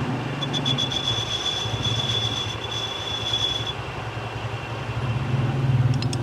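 Metal lathe running with a steady hum. A high, thin squeal, typical of a cutting tool on metal, lasts from about half a second to nearly four seconds in. A few sharp clicks come near the end.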